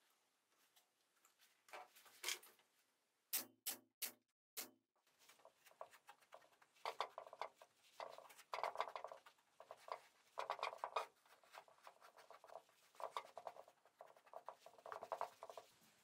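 Soft rustling and rubbing in repeated bursts as hands smooth and fold polyester batting over a foam seat cushion, with a quick run of four sharp clicks a little over three seconds in.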